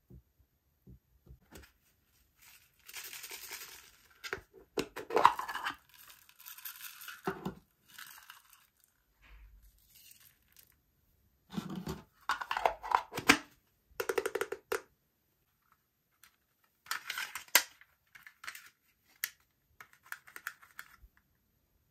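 Hands handling makeup and slime ingredients: separate bursts of crinkling, crackling and tearing with scattered sharp clicks, between quiet gaps.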